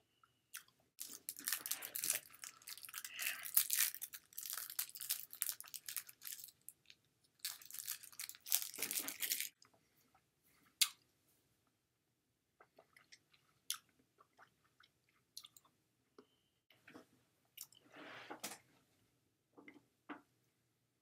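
Crunching and crackling close to the microphone in two long stretches during the first half, then a shorter one near the end, with scattered clicks in between.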